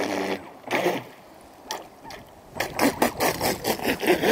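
ProBoat Voracity-E RC speedboat's brushless electric motor and propeller worked in short throttle bursts, churning the water. There are two brief spurts, a lull, then a rapid pulsing run of several bursts a second in the second half.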